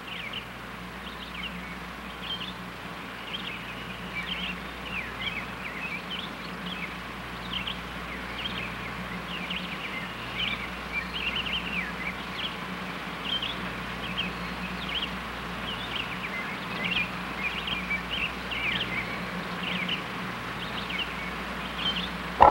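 Birds chirping, many short high calls one or two a second, over a steady low hum.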